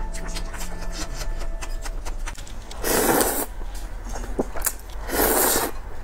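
Spicy instant noodles slurped in two loud pulls, about three seconds in and again near the end, with small wet clicks between them.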